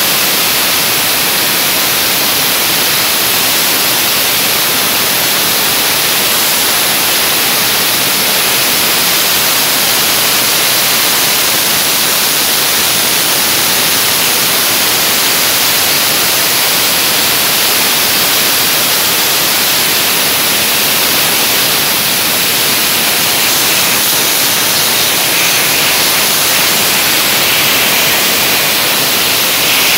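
Dry ice blasting nozzle spraying a loud, steady hiss of compressed air and dry ice pellets against stainless steel, blasting off limescale.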